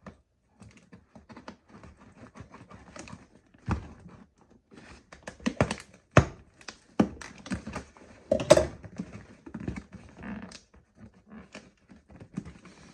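Stapled cardboard box flaps being pried and torn open by hand: irregular clicks, scrapes and knocks, the sharpest about six seconds in and another loud one about eight and a half seconds in.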